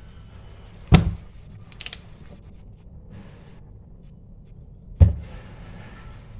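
Two sharp thuds about four seconds apart, with light papery rustling between them, as the heavy pages of a scrapbook are turned and dropped flat.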